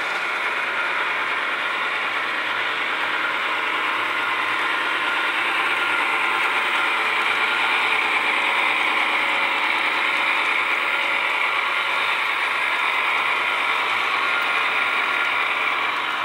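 Model train of CSX GE AC6000CW diesel locomotives pulling intermodal container cars, running steadily across a model bridge: a continuous whirring, rattling run of wheels on rail and gearing, slightly louder about halfway through as the locomotives pass.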